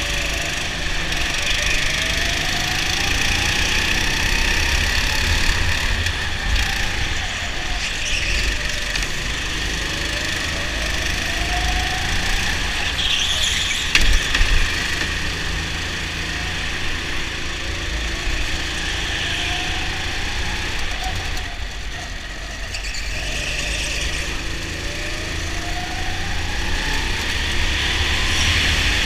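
Go-kart heard from onboard at racing speed, its engine pitch rising along each straight and dropping back for the corners, over and over every few seconds. About halfway through there is one sharp knock, as the kart makes contact with the kart directly ahead.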